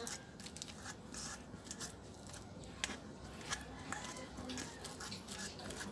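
A metal fork mashing peeled bananas in a stainless steel bowl: irregular clinks and scrapes as the tines strike the bowl.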